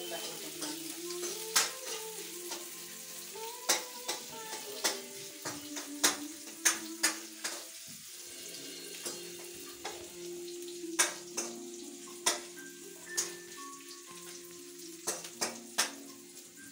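Oil frying in a pan: a steady sizzle with frequent sharp spattering pops. Faint background music plays underneath.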